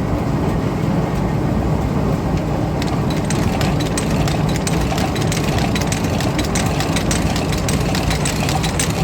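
Antique Champion upright leather sewing machine running with a steady low drone; about three seconds in, a rapid run of sharp clicks starts, several a second, as it begins stitching.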